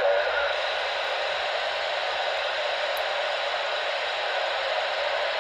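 Steady hiss of receiver static from a Galaxy DX 2547 AM/SSB CB base station radio's speaker: an open channel with nobody transmitting, a thin mid-pitched rush without voices.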